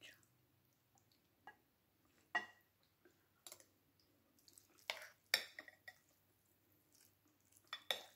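Eating utensils clinking and scraping against a plate or bowl during a meal: about half a dozen short, scattered clinks, the loudest about two and a half seconds in and around five seconds in.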